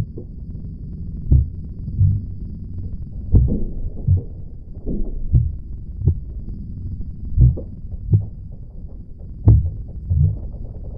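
Slow heartbeat sound effect: pairs of low thumps, the second close behind the first, repeating about every two seconds over a low steady drone.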